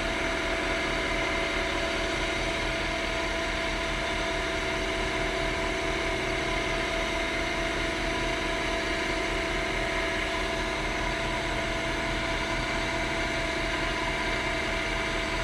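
Wood lathe running steadily at about 2,000 RPM, a steady motor hum with several high whining tones, while a cloth loaded with diamond polishing paste is held against the spinning pen blank.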